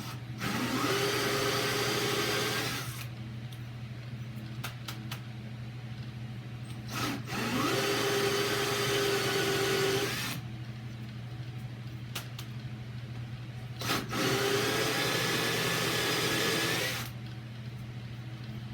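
Electric drill running a steel-cutting hole saw into a wooden door in three bursts of about three seconds, the motor whining up to speed at the start of each. The saw's small teeth load up with sawdust and stop cutting well.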